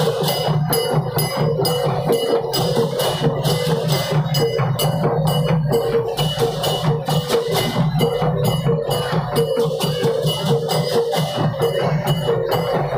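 Massed okokan, large Balinese wooden bells with wooden clappers, clattering together in a steady, driving rhythm, with a hollow ringing tone under the knocking.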